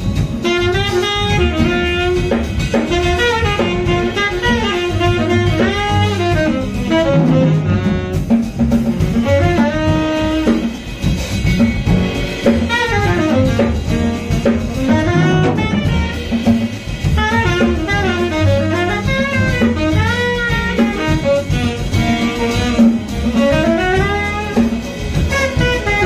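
Instrumental background music: a melody that slides up and down in pitch over a bass line and a steady beat.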